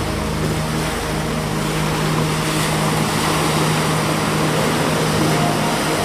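Small waves washing up a sandy beach, a steady rushing surf with no single crash standing out. A steady low drone runs underneath.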